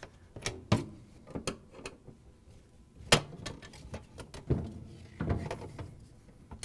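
Hand Phillips screwdriver backing screws out of a refrigerator's plastic shelf track, with scattered irregular clicks and knocks of metal and plastic, a few of them sharp.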